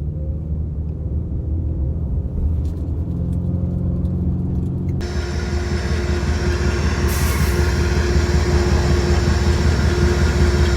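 A motor running with a steady low rumble; about five seconds in, the sound changes abruptly to a louder, hissy running noise with a steady hum on top.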